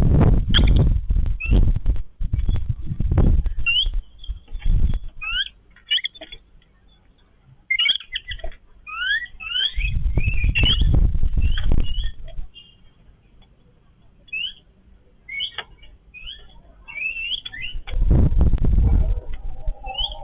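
Yellow-billed babblers calling with many short, quick chirps, some notes sliding up or down in pitch. Four loud low rustling bursts break in: near the start, around three to five seconds in, in the middle and near the end.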